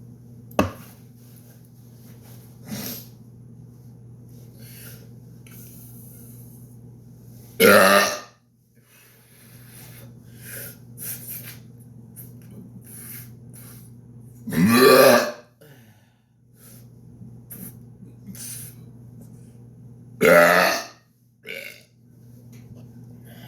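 A man's loud, deliberate burps: three long ones about six to seven seconds apart, with quieter short sounds between them and a sharp click about half a second in. A steady low hum runs underneath.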